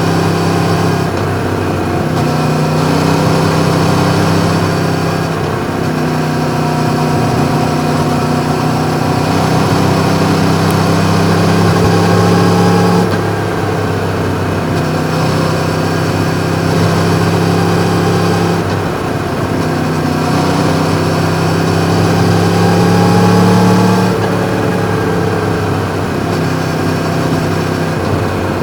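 Yamaha MT-10's crossplane inline-four running under way through an Akrapovič exhaust. Its note climbs slowly and then drops abruptly several times.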